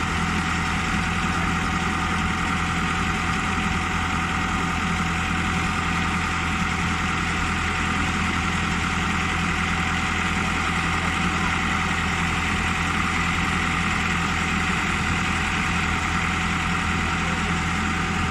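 Self-loading concrete mixer truck's diesel engine running steadily at constant speed, an even drone with a few fixed tones and no change in pitch.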